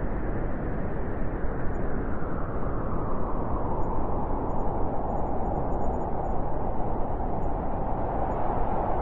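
Blizzard wind blowing steadily, a dense rushing with a howling note that dips a little in pitch over the first few seconds and then holds.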